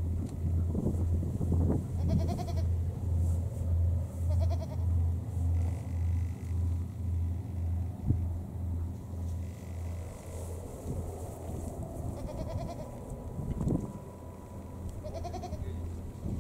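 Goats bleating: short, wavering calls, about four times. Under them runs a low, pulsing throb of about two beats a second, which fades out about two-thirds of the way through.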